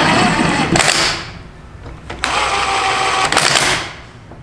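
Cordless impact wrench hammering in two long bursts, the first ending about a second in and the second running from about two to nearly four seconds in, as it drives the lug bolts of a new off-road wheel into the hub.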